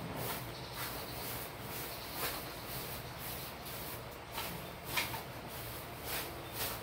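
Light handling sounds of a PVC pipe being wrapped with packing tape and turned in the hands: soft rustles and several short clicks and taps over a steady hiss.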